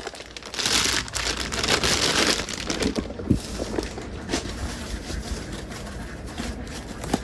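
Plastic packaging crinkling and rustling as parts are taken out of a new piston kit, loudest in the first few seconds, then small scattered rustles and clicks.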